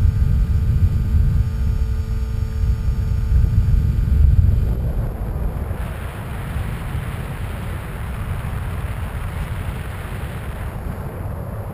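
Wind rushing over the onboard camera of a Skywalker 1900 electric FPV plane in flight, with a steady whine from its electric motor and propeller. The whine fades out about five seconds in, leaving the wind rumble.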